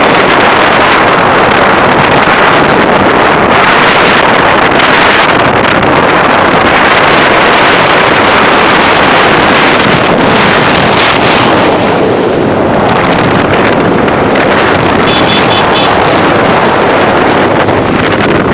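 Loud, steady wind rush buffeting the microphone of a phone held out from a moving motorcycle.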